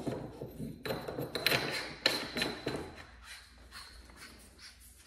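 Handling noise of a short barrel being screwed onto a less-lethal launcher by hand: metal parts scraping and clicking, with one sharp click about two seconds in. The noise dies down after about three seconds as the launcher is lifted.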